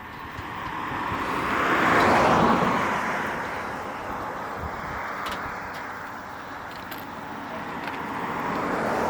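A road vehicle driving past, its noise swelling to a peak about two seconds in and then fading, followed by a second, smaller pass near the end.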